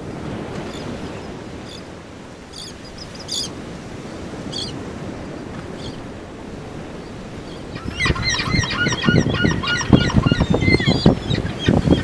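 A low, steady wash of outdoor ambience with a few faint, distant gull cries. About two-thirds of the way in, a flock of gulls starts calling loudly: many short calls crowding over one another.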